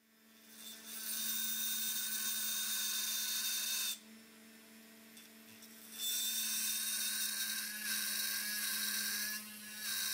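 Flex-shaft rotary tool running steadily, its diamond ball burr grinding a cup into the tip of a steel nail set. The grinding drops out for about two seconds in the middle while the motor keeps running, then resumes, with lighter contact near the end.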